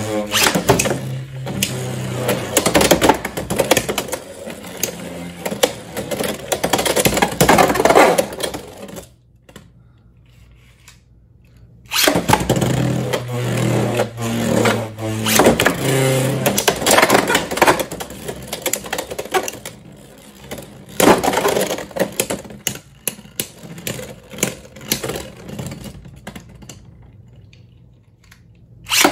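Beyblade X spinning tops whirring and clattering against the plastic stadium floor and rail, with many quick scrapes and knocks. The sound stops about nine seconds in and starts again suddenly about three seconds later with a fresh launch. It then runs until just before the end, when it dies away and another launch starts.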